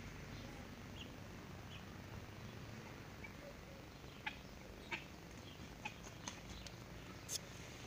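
Chickens clucking faintly, a handful of short clucks scattered through the second half over a quiet outdoor background.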